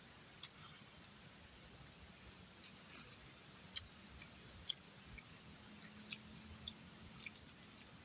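A cricket chirping in a high-pitched, pulsing trill, with two louder runs of four quick chirps, one about a second and a half in and one near the end. A few faint sharp clicks in between.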